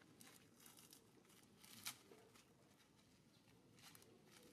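Faint crinkling of a plastic snack wrapper being handled by a macaque, in scattered short crackles with a sharper one just under two seconds in.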